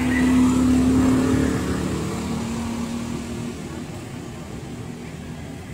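A motor vehicle's engine passing by: a steady hum that is loudest at first, drops slightly in pitch about two seconds in, and fades away.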